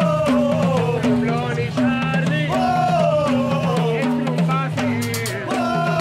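Lively band music: a wailing lead melody with pitch bends over a repeating two-note bass figure and steady drum beats.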